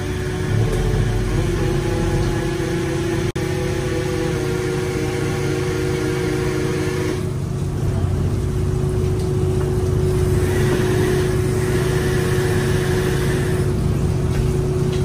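An engine running steadily with a constant hum and a steady tone; its sound changes about seven seconds in.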